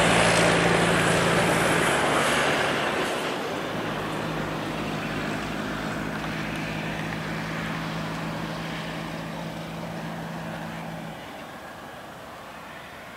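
Heavy-haulage Kenworth K200 trucks' diesel engines and tyres passing and drawing away, the sound fading steadily. A steady engine drone holds until near the end, then drops out.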